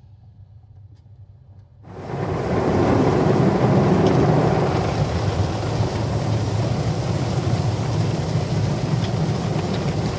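Automatic car wash heard from inside the car: a faint low hum for about two seconds, then water jets suddenly start hitting the windshield and roof, a loud steady rushing spray.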